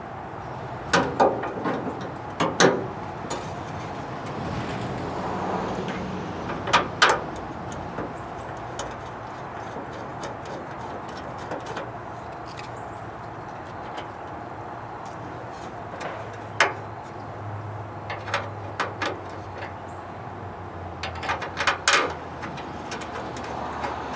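Scattered sharp clicks and knocks from hand work with tools, a few loud strikes among lighter taps, over a steady low hum.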